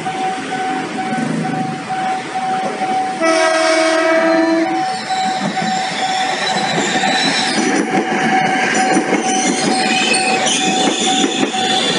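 Electric commuter train sounding its horn once for about a second and a half, then running close by with the clatter of wheels on rail joints and high squeals from the wheels.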